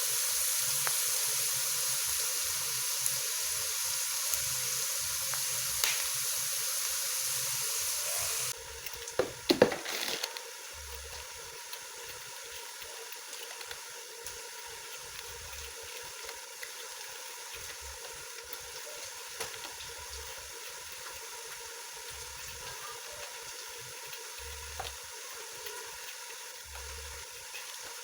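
Food sizzling in hot oil in a cooking pot, a steady hiss that drops off abruptly about eight seconds in. A few sharp knocks follow, then a quieter sizzle carries on.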